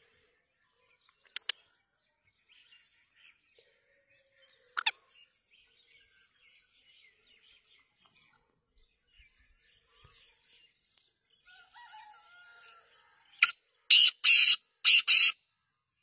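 Black francolin calling near the end: one short note, then two quick pairs of loud notes. Before it, two brief sharp sounds and faint distant bird chirps.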